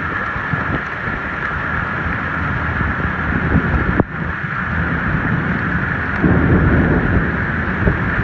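Storm wind buffeting the microphone over a steady hiss of heavy rain, growing louder about six seconds in.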